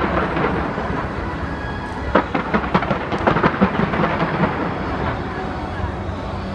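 Fireworks display going off: a run of sharp bangs and crackles over a continuous low rumble of booms, thickest from about two seconds in.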